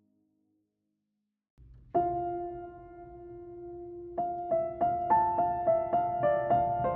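Background piano music. After a second or two of silence, one note is struck and held, then quicker notes follow at about three a second from about four seconds in.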